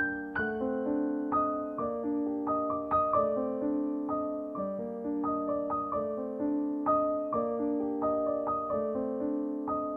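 Background piano music, a steady flow of notes with no break.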